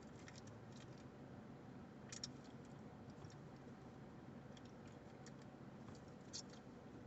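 Near silence: a faint steady low hum with a few soft clicks, slightly stronger about two seconds in and again near the end.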